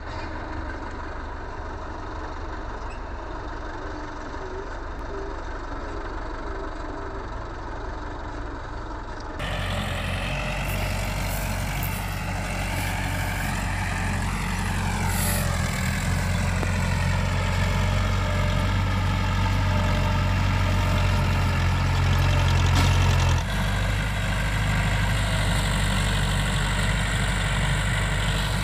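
Farm tractor's diesel engine running steadily while pulling a cultivator through tilled soil. The engine sound changes abruptly twice, about a third of the way in and again near the end.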